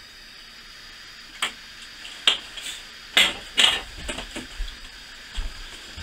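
Sharp clicks and knocks of a metal candle snuffer being set down and handled on a glass tabletop, the loudest a pair about three to four seconds in, followed by softer ticks and low bumps of movement.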